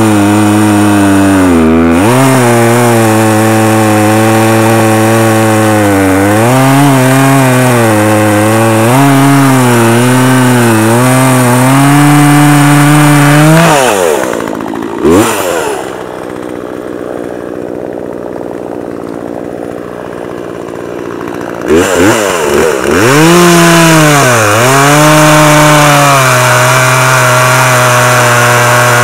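Poulan Pro 42cc two-stroke chainsaw cutting through a 16-inch sugar maple log, its engine pitch dipping and wobbling as the chain bites. About halfway it drops to idle for about six seconds, then revs back up and bogs into a second cut.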